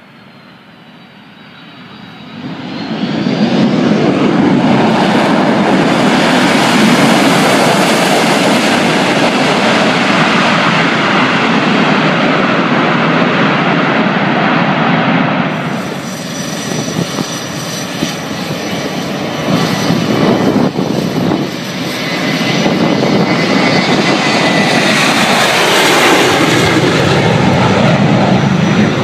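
Boeing 737 jet engines spooling up to takeoff thrust about two and a half seconds in, then running loud and steady through the takeoff roll. After a break near the middle, the jet noise builds again as the airliner lifts off and climbs away overhead.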